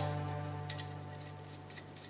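Background music: a held chord fading away, with two faint clicks partway through.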